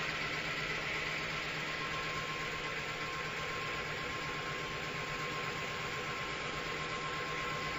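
Reciprocating plant compressor running steadily: an even mechanical hum and hiss with a faint high tone.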